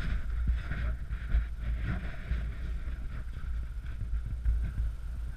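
Muffled rumbling and rustling handling noise from a camera mounted on a kayak that is being carried, with a few faint knocks.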